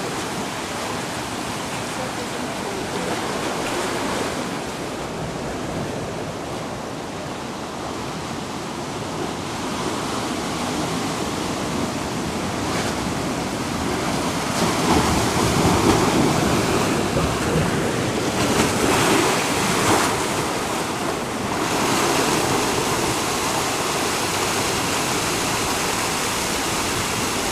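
Sea surf washing against a lava-rock shore, a steady rushing that swells louder for several seconds about halfway through as a bigger surge comes in.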